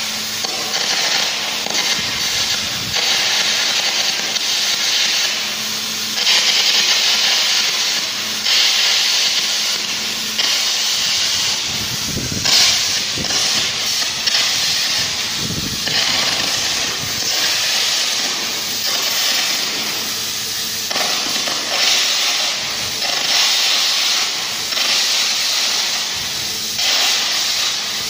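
Air carbon arc gouging on a steel plate seam: a loud hissing, crackling blast that surges and eases every couple of seconds as a groove is cut into the joint to prepare it for welding.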